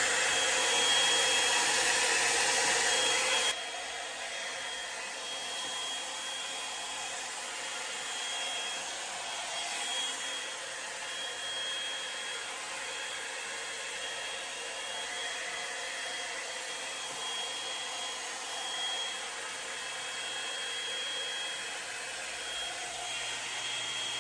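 Drybar Double Shot blow-dryer brush running on damp hair: steady blowing air with a thin high motor whine. It gets quieter about three and a half seconds in.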